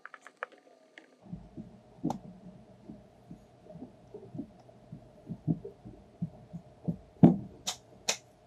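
Irregular soft thumps and knocks of hands working carpet and the wooden seat bench inside a stripped light-aircraft cabin, with a few sharp clicks near the end. A steady hum runs behind.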